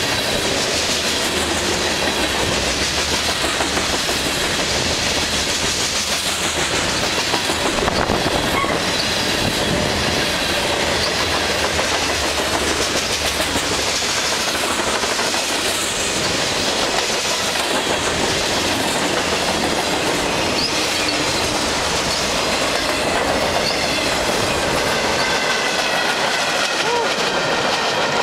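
Freight cars of a passing train rolling by close at hand. Their steel wheels rumble and clack over the rail joints in a rhythm that repeats as each car goes past. Thin wheel-squeal tones grow clearer in the second half.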